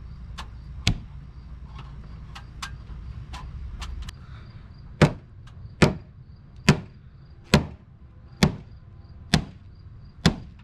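Hammer blows on wood: a few scattered knocks, then steady strikes a little more than one a second. Under the first few seconds runs a low steady rumble that stops about four seconds in.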